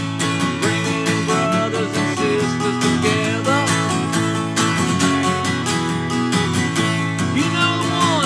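Steel-string acoustic guitar strummed steadily in a country-style rhythm, with a man's singing voice coming in at moments.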